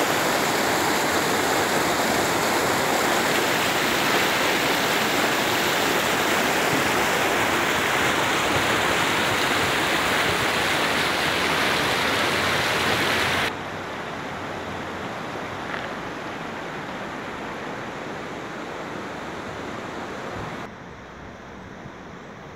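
Shallow river water rushing and splashing over rocks in a small rapid, a loud steady rush. About 13 seconds in it cuts off suddenly to a much quieter steady hiss, which drops again near the end.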